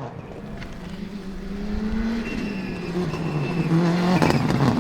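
Subaru Impreza S7 WRC rally car's turbocharged flat-four engine pulling hard as the car approaches, growing louder. Its pitch climbs for about two seconds, drops at a gearshift, then rises and falls again, with a few sharp pops near the end.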